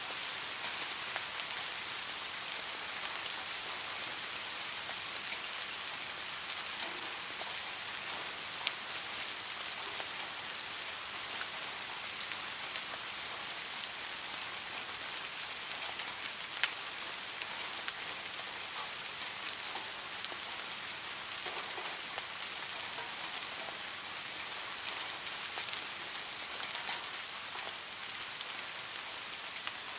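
Steady rain falling and pattering on a surface, with scattered individual drop hits, two of them a little louder, about nine and seventeen seconds in.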